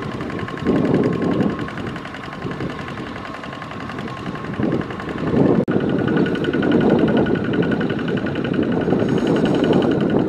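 Kubota ZT140 single-cylinder diesel engine of a two-wheel walking tractor running steadily under load as its cage wheels churn through flooded paddy mud. The sound breaks off for an instant a little past halfway and then comes back somewhat louder.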